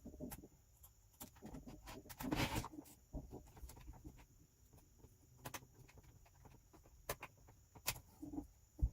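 Scattered small clicks and taps of a mini screwdriver and a laptop's plastic parts being handled while the screen screws are put back in, with a brief scraping rustle about two and a half seconds in and a sharper click near the end.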